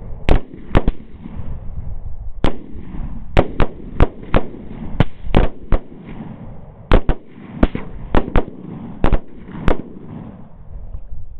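Rapid, irregular rifle fire from several shooters at once, about twenty shots in close succession, some only a fraction of a second apart. The shots stop about ten seconds in, over a steady background drone.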